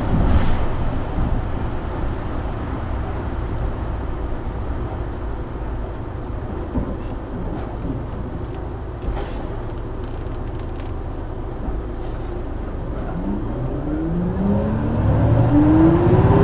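Isuzu Erga Hybrid city bus heard from inside the cabin: a low, steady drivetrain and road rumble. From about 13 seconds in, the note climbs steadily in pitch and grows louder as the bus accelerates hard at high revs.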